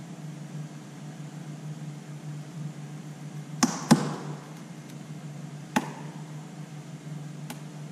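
Sharp clicks and knocks as a Vespa GTS front mud guard is pressed and fitted up against the underside of the front fender by hand: two close together about halfway through, another about two seconds later and a faint one near the end, over a steady low hum.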